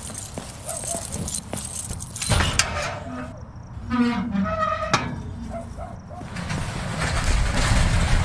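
Keys jangling and clicking, then a large metal garage door rolling and sliding open with a rumbling scrape. The scrape comes in two pushes, the second building toward the end.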